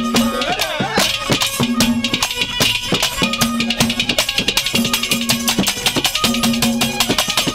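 Instrumental interlude of Haryanvi ragni folk music: harmonium holding repeated notes over fast hand-drum strokes and jingling percussion.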